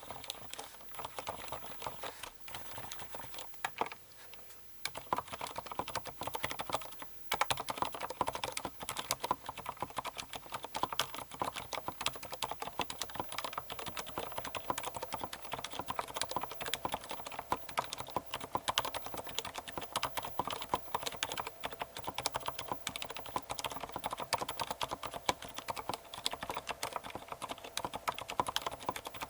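Keyboard with lubed Cherry MX Silent Red linear switches (Krytox 103 lube, 62 g springs) being typed on: a patter of keystrokes, lighter and sparser at first, then fast and continuous from about seven seconds in.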